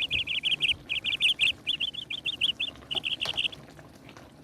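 A bird chirping in four quick runs of short, high notes, stopping about three and a half seconds in.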